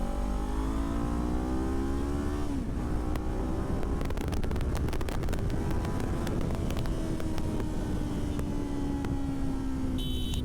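Kawasaki Ninja 400 parallel-twin engine with a Yoshimura slip-on exhaust accelerating hard, its note rising steadily, then dropping sharply at a gear change about two and a half seconds in. After that the engine note falls slowly under heavy wind rush over the microphone, with scattered clicks in the middle.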